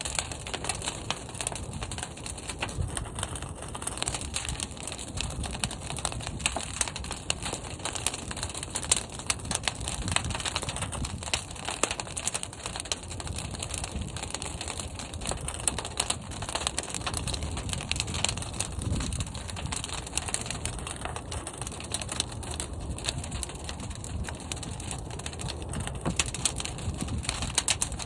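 Fire burning inside a large kiln: a steady low roar of the flames with dense, irregular crackling.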